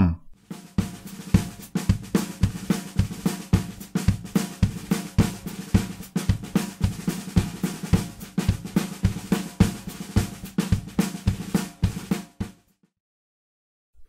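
Snare drum played with drumsticks: a rhythmic run of quick strokes, louder accented hits mixed with softer notes in between, stopping about twelve and a half seconds in.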